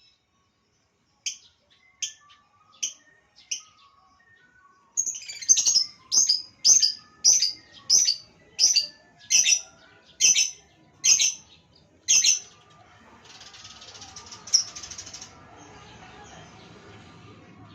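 Lovebird giving sharp, high-pitched chirps: a few spaced calls, then a regular run of louder ones about one every 0.7 seconds. Near the end the calls stop, leaving a softer hiss-like noise.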